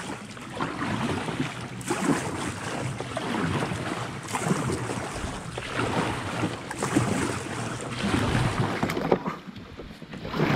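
Kayak paddle strokes dipping and splashing at irregular intervals, about one every second or two, with water sloshing against the plastic hull.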